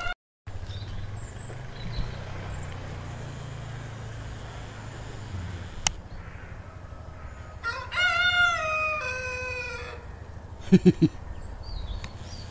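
A rooster crowing once: a call of about two seconds that rises, holds, and drops away at the end. About a second later come three short, sharp sounds in quick succession.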